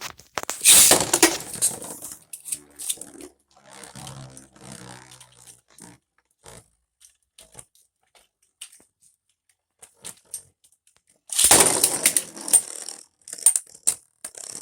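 Beyblade spinning tops launched into a plastic stadium: a loud rushing whir of the launch about half a second in, then the tops spinning and clattering against each other and the stadium with scattered clicks, and a second loud rush about eleven and a half seconds in.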